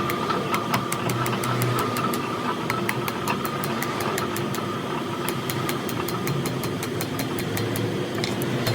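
A steady machine hum with rapid, regular ticking, about five or six ticks a second.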